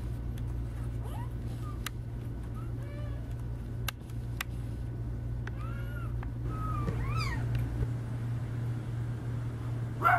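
Newborn Irish setter puppies squeaking and mewing as they nurse: several short, thin cries that rise and fall, over a steady low hum.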